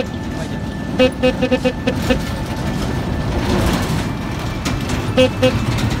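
A dump truck's horn blown in a quick staccato run of about seven short toots, then two more toots near the end. Between them the passing truck's engine and tyres make a steady noise.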